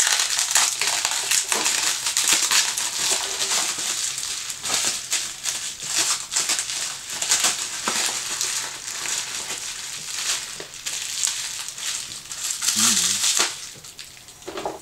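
Plastic bubble-wrap packaging crinkling and crackling in an irregular stream as it is pulled and peeled off a long cooking tray, dying down near the end.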